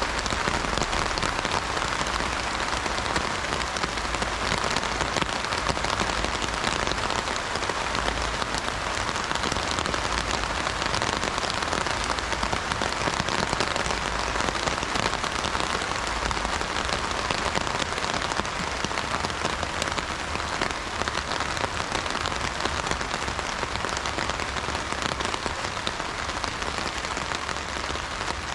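Heavy rain drumming steadily on an umbrella canopy, a dense, even patter of drops with no thunder.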